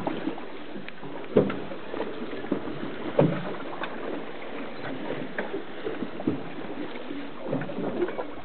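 Water lapping and slapping against the hull of a boat on a choppy sea, with irregular sharp slaps. The loudest slaps come about a second and a half in and about three seconds in.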